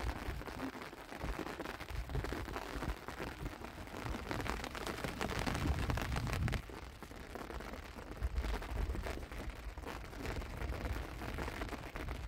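Wind buffeting the microphone in uneven gusts, a low rumble that rises and falls.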